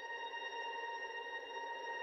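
Ambient background music: a steady drone of held tones.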